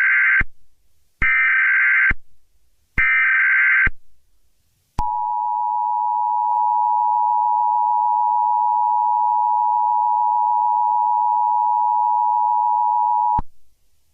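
Emergency Alert System broadcast signal: three short bursts of digital data tones (the SAME header), the first already under way, then after a brief gap the steady two-tone attention signal, held for about eight seconds and cutting off suddenly.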